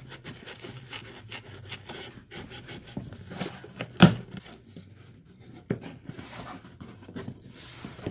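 Hands unpacking a parcel: scraping and rustling of the packaging with many small clicks, and one sharp knock about four seconds in.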